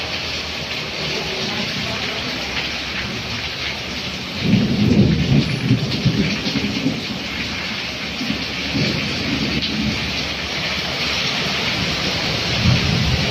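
Heavy rain falling steadily on a wet street, with a low rumble of thunder starting about four and a half seconds in and lasting a couple of seconds. Near the end a vehicle goes by on the wet road.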